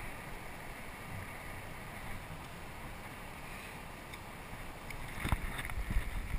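Quiet, steady wind and water noise with no clear single source, then a few light knocks and bumps about five seconds in.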